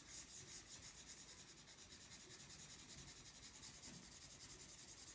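Felt-tip marker scratching over paper in rapid, even back-and-forth shading strokes, faint.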